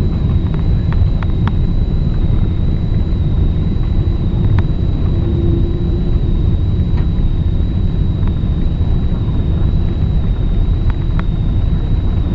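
Steady low rumble inside the cabin of a Boeing 777-222ER during its landing rollout on the runway, with spoilers raised. A faint steady high whine runs through it, and a few light clicks and rattles are heard.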